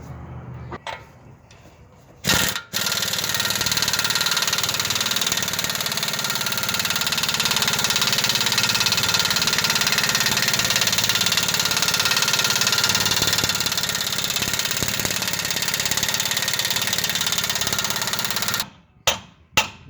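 Air impact wrench hammering on the 35 mm axle hub nut. A short burst comes about two seconds in, then it hammers steadily for about sixteen seconds and stops, breaking the tight nut loose.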